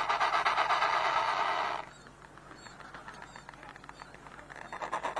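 Penguins calling with harsh, buzzing bray-like calls, loudest in the first two seconds, then dropping away before building again near the end.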